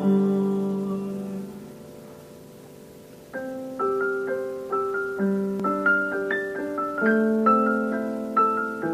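Solo piano instrumental: a held chord fades away over about three seconds, then a steady pattern of single notes and chords picks up again.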